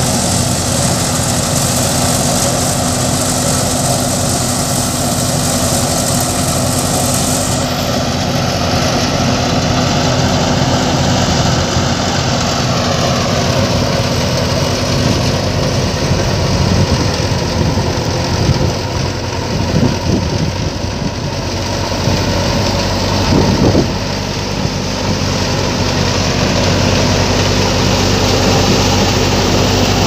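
Wheat thresher running steadily as wheat sheaves are fed into it, a continuous mechanical drone from its engine drive and threshing drum.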